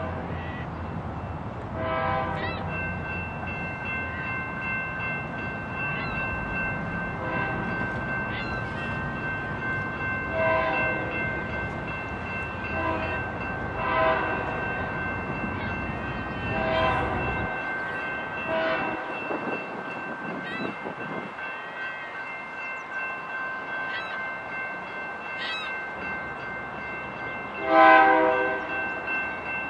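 Locomotive air horn blowing a series of distant blasts as a train approaches, the last one near the end clearly louder. A steady high ringing tone runs under it.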